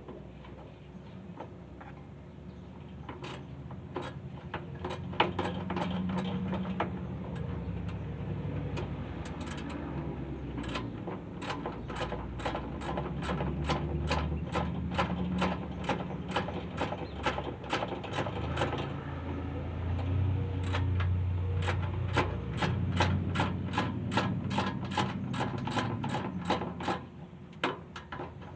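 Hand ratchet wrench clicking in quick runs as bolts are turned on a car's front suspension, over a low background rumble.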